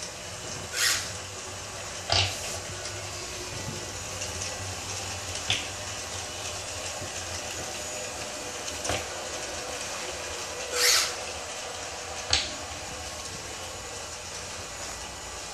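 Homemade robotic wet mop running across a tile floor: a steady motor hum, broken by a few sharp clicks or knocks and two short hisses, one about a second in and one near the end.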